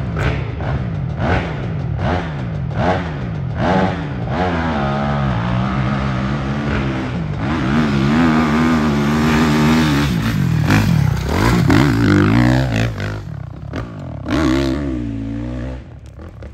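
Hillclimb dirt bike engine revving hard: short throttle blips at first, then held at high revs with the pitch wavering up and down as the bike climbs the steep dirt hill. The revs drop off near the end.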